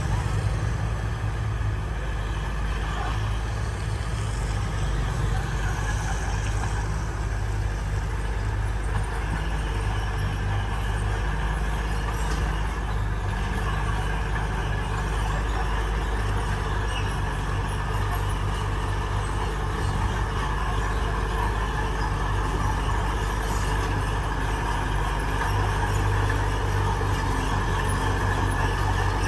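Heavy diesel earthmoving machinery running steadily, a low, unbroken engine drone, a little louder near the end.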